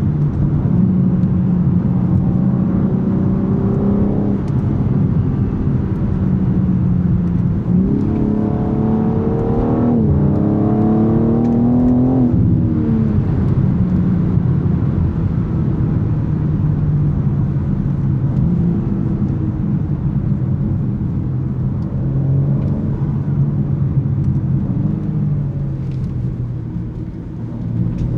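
BMW M3 Competition's S58 3.0-litre twin-turbo straight-six driving along. About eight seconds in it accelerates, its pitch climbing for some four seconds with a break partway, then drops away sharply as the throttle closes. It settles back to steady running.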